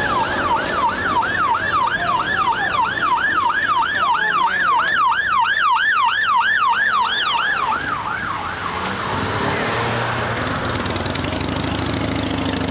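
Emergency vehicle siren in rapid yelp mode, about three rising-and-falling sweeps a second, which stops about eight seconds in. After that comes a steady rush of street noise with a low engine hum.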